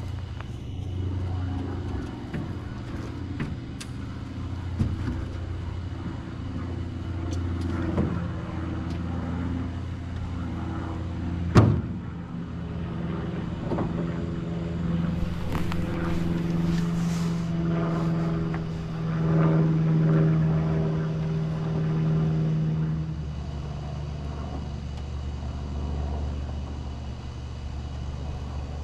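A motor running with a steady low hum, its pitch pattern shifting and growing stronger for a stretch partway through. A few clicks, and one sharp knock about twelve seconds in.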